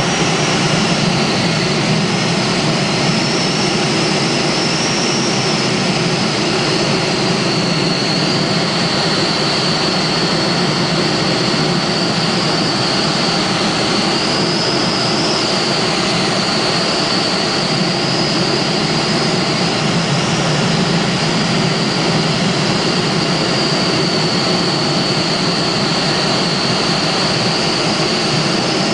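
Steady rush of airflow around the cockpit of an SZD-9 Bocian glider in flight, with a thin high whistle that wavers slightly in pitch.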